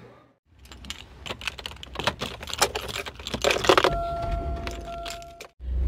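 Car keys jangling and clicking on a keyring as the key is worked into the ignition. About 4 s in, a steady electronic warning chime sounds for about a second and a half, with a low rumble under it.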